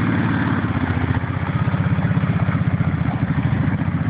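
ATV (four-wheeler) engine running steadily at low revs, with an even, rapid pulsing beat.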